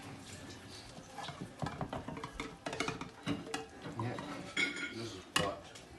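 Metal utensil scraping and clicking against a frying pan as a potato omelette is worked and loosened in the pan: a string of irregular scrapes and clinks.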